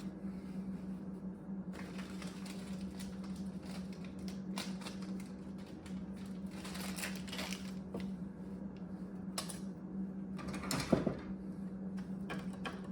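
Scattered clicks, knocks and short scrapes of sharpening gear being handled and put away, over a steady low hum.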